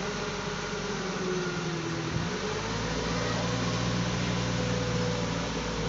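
Truck engine running steadily, its hum growing heavier about two seconds in as the crane is worked, with a faint gliding whine.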